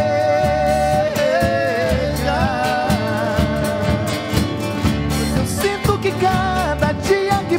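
Live sertanejo music: a man singing long held notes over acoustic guitar, accordion and drum kit.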